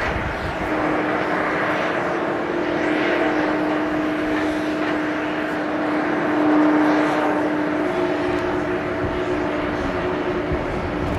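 Jet engines of a Boeing 747-400, four General Electric CF6 turbofans, running at low power as the airliner rolls out along the runway after landing: a steady rushing roar with a steady whine.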